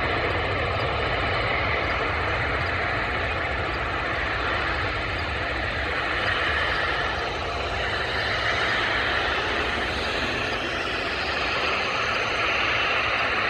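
Boeing 777-300ER's twin GE90-115B turbofans running at low taxi power as the airliner taxis close by: a steady jet whine over a low rumble.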